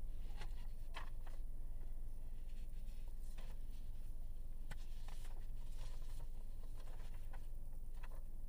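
Steady low rumble in a stopped car's cabin, with a few faint, scattered clicks and rustles.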